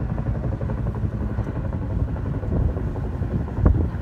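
Helicopter flying overhead, its rotor beating steadily, with a single sharp thump about three and a half seconds in.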